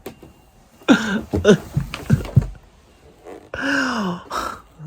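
A woman's voice letting out wordless, exasperated groans: a short one about a second in and a longer moan falling in pitch near the end.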